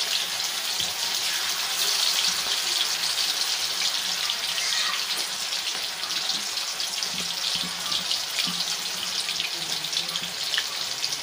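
Batter-coated chicken pieces deep-frying in hot oil: a steady, dense sizzle with fine crackling throughout.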